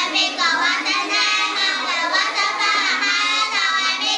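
A small group of young girls singing an English song together.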